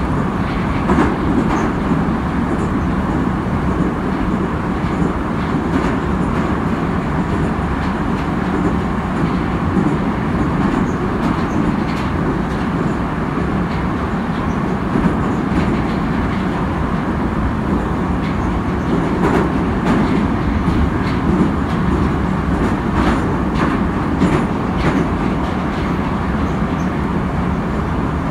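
Saint Petersburg metro train running through a tunnel, heard from inside the carriage: a steady, loud rumble with occasional clicks from the wheels on the rails.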